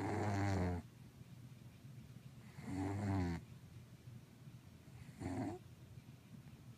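Domestic cat snoring in its sleep: three snores about two and a half seconds apart, the last one shorter.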